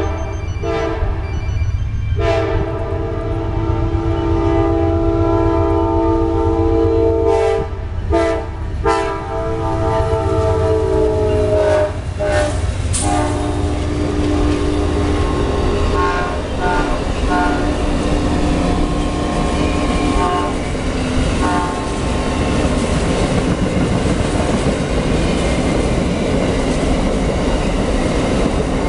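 Amtrak passenger locomotive's multi-note air horn sounding a series of blasts for the grade crossing, long ones with a short one between, ending about twelve seconds in. The long passenger train then passes close by: a steady rumble of the cars with the clickety-clack of wheels over the rail joints.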